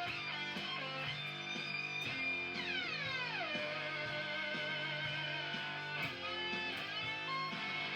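Fuzzed electric guitar playing sustained notes through a Le Revenant octave fuzz pedal. About two and a half seconds in, a lead note dives smoothly down in pitch over about a second, a Whammy-pedal dive, then holds with a slight waver.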